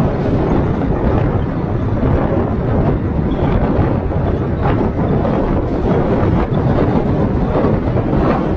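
Kia K3 sedan driving at speed: steady tyre and road rumble mixed with wind rush buffeting the microphone.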